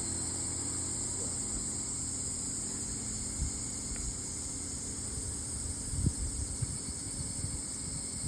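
Steady high-pitched drone of summer insects, with a low engine hum that fades out in the first few seconds and some low thumps and rustling near the end.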